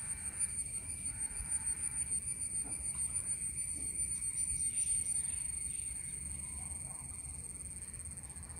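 Steady high-pitched trilling of insects, crickets or similar, pulsing quickly and growing a little fainter in the second half.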